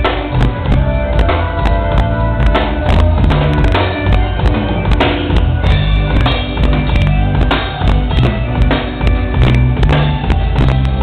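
Band music with a drum kit keeping a steady beat over a deep bass line.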